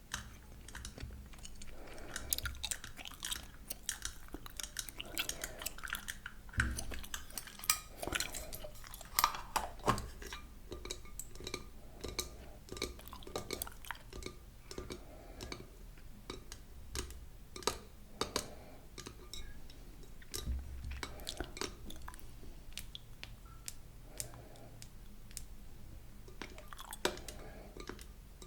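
Close-miked gum chewing with many sharp, wet clicks and smacks throughout.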